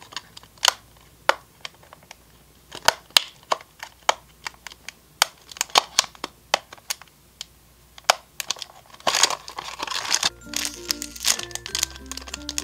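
Clear plastic clamshell packaging clicking and cracking in irregular snaps as it is pried open by hand, with a burst of crinkling plastic about nine seconds in. Background music comes in near the end.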